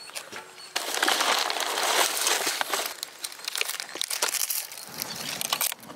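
Dry palm leaves crackling: a dense burst of crackles from about a second in, thinning to scattered crackles in the second half.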